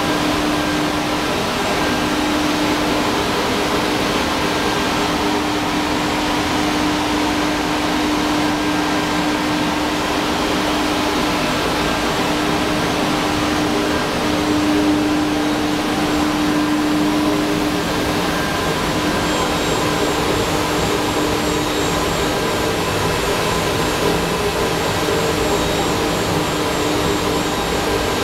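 Masterwood Atlas 5XL five-axis CNC machining centre and its dust extraction running: a steady airy hum with a constant low drone, and a faint high whine that joins about two-thirds of the way through.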